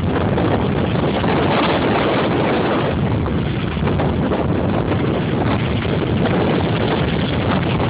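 Strong wind buffeting the microphone over the steady rush of heavy surf at high tide, a continuous loud noise with no single wave crash standing out.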